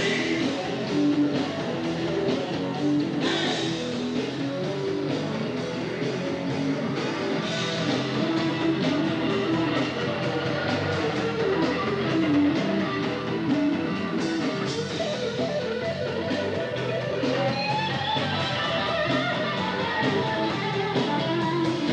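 Rock song in an instrumental stretch without vocals, with guitar to the fore over the full band.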